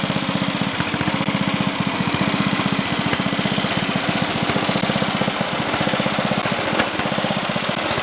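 Small lawn mower engine running steadily, with an even, rapid chugging pulse.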